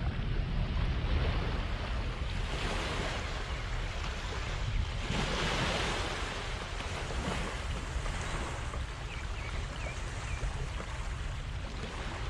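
Sea waves washing onto the shore, with wind rumbling on the microphone; the surf swells up about five seconds in.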